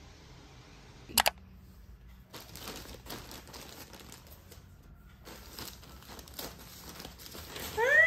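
Black plastic garbage bag wrapped around a parcel crinkling and rustling as it is handled, after a sharp double click about a second in. A loud pitched voice starts right at the end.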